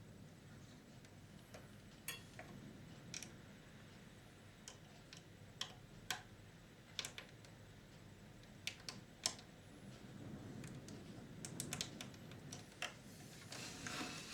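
Scattered light clicks and taps of small parts being handled while a VCR is put back together, spread irregularly over a faint background hum, with a busier patch of clicking and rustling near the end.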